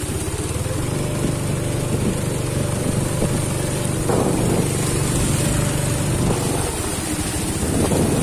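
Underbone motorcycle's small engine running steadily at low speed.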